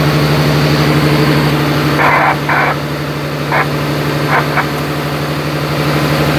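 Fishing boat's engine running steadily with a low hum, with a few short sharp sounds on top about two seconds in.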